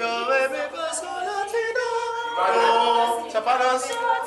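A group of people singing a birthday song together, unaccompanied, several voices holding long notes.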